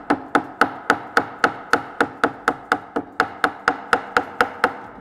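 Nylon-headed mallet tapping the wood of an old table, about four light, even blows a second, knocking a mortise-and-tenon joint apart. The blows stop near the end.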